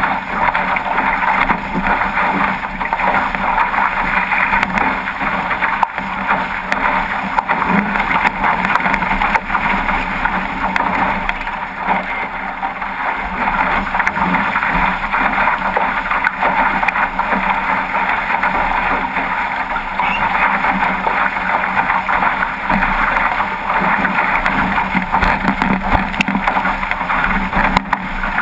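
Steady rush of wind on the microphone mixed with water rushing along the hull of a 505 racing dinghy under sail in choppy water.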